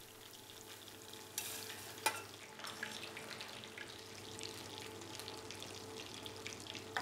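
Clarified butter sizzling and crackling faintly in a frying pan. Two light clicks of cutlery on a plate come about one and a half and two seconds in.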